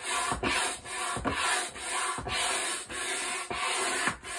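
Hand-operated stand air pump inflating an inflatable swim ring: a rhythmic rushing whoosh, one pump stroke after another, about two strokes a second.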